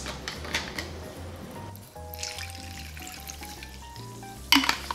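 Carbonated water poured from a SodaStream bottle onto ice in a tall glass, fizzing and crackling, with a louder burst of splashing and fizz near the end. Soft background music plays under it.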